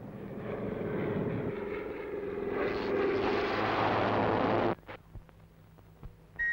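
Cartoon sound effect of a small propeller plane's engine droning and growing louder. About two and a half seconds in, a harsh electric zapping crackle takes over and cuts off suddenly near the five-second mark, followed by a few faint clicks.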